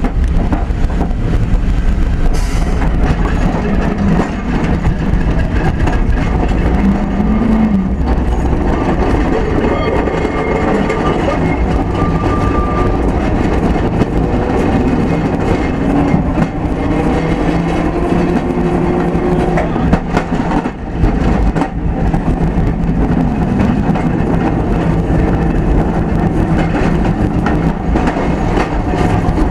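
FM tram's bogie and electric traction motor in motion, heard through an open floor hatch directly above the bogie: a steady low hum with tones that shift as the speed changes, and wheels running on the rails with frequent knocks and rattles.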